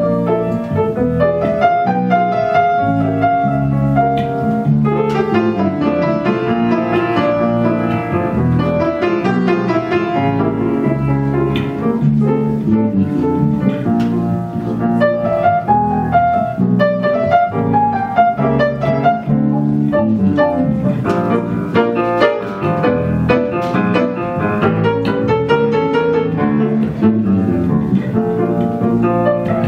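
Live piano playing an instrumental interlude of a song, a steady run of melody and chords with no singing.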